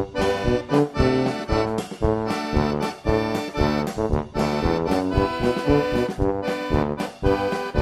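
Background music: an upbeat instrumental tune with a steady beat.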